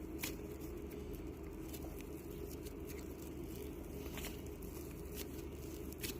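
Faint, scattered sticky clicks and crackles of slime being mixed with air-dry clay and a little water, over a steady low hum.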